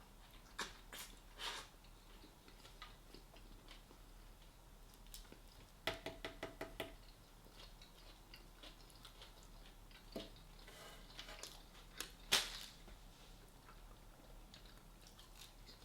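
A few small clicks and knocks of a person eating and handling food: a quick run of about six clicks around six seconds in, and one sharper click near the end.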